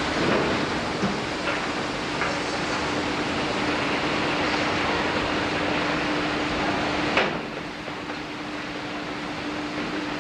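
Steady mechanical noise with a constant hum. A sharp click about seven seconds in, after which the noise is quieter and duller.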